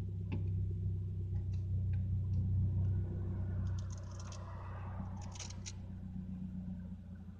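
1998 Mitsubishi Eclipse driving, heard from inside the cabin: a steady low engine hum under road noise, with a few light clicks and rattles.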